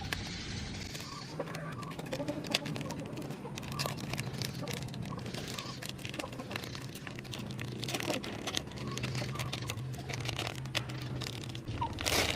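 Small electric grinder's motor running with a low hum, over a dense, uneven crackling and clicking of something brittle being broken up by the blade.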